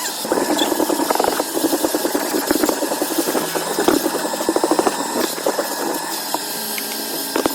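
A small motorised cleaning tool working over a car floor mat, running steadily with a fast, rattling chatter.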